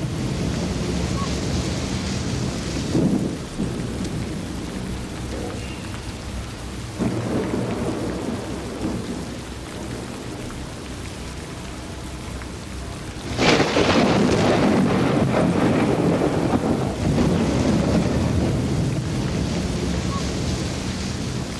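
Heavy rain pouring steadily with rolling thunder: low rumbles about three and seven seconds in, then a sharp crack of thunder about two thirds of the way through that rumbles on loudly.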